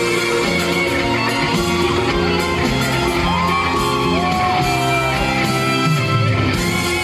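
Instrumental break of a trot song, the backing music playing loudly over a PA, with shouts and whoops from the audience.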